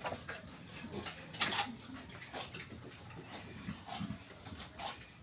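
Pigs grunting in short, irregular calls, with a sharper, louder call about one and a half seconds in.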